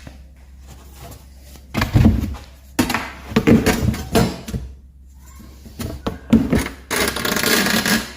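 A string of knocks, clunks and scrapes from objects being handled and set down, starting about two seconds in, with a longer rushing scrape near the end.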